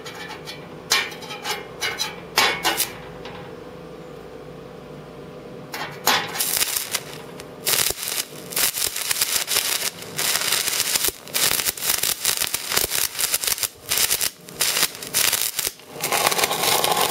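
Stick (arc) welding: after a few clicks, the arc strikes about six seconds in and the electrode crackles and spits steadily, with brief breaks.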